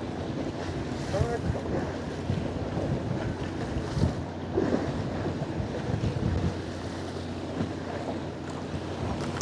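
Fishing boat ambience at sea: the boat's machinery hums steadily under wind on the microphone and water washing along the hull.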